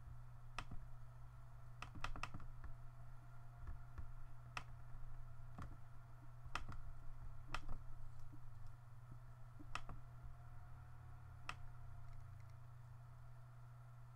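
Faint, irregularly spaced clicks of a computer mouse and keyboard, about a dozen, three in quick succession about two seconds in, over a steady low hum.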